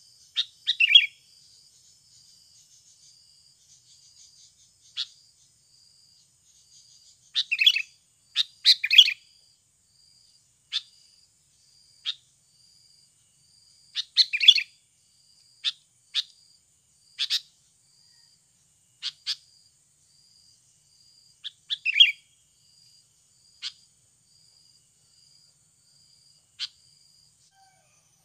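Sooty-headed bulbul (kutilang) decoy giving short sharp chirps in scattered clusters, calling to lure wild bulbuls. A faint high pulsing note repeats steadily behind it, about one and a half times a second.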